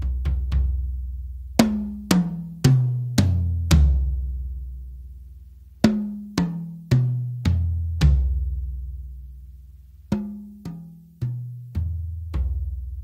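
Toms fitted with Remo Emperor Clear two-ply heads, struck one at a time from the smallest to the floor tom. Each drum rings out before the next lower one. After a few quick hits, the descending five-drum run is played three times.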